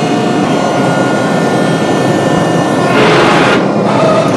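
Propane forge with venturi burners running at full blast, a loud, steady rushing noise. It swells briefly about three seconds in.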